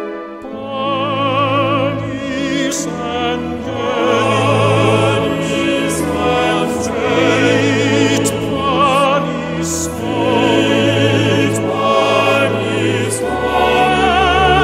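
Classical vocal music: a singing voice with heavy vibrato holding long notes over sustained low accompaniment notes.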